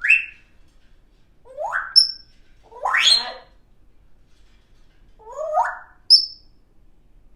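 African grey parrot whistling a string of separate calls: sweeps that rise sharply in pitch, two of them followed at once by a short high pip, with quiet gaps between.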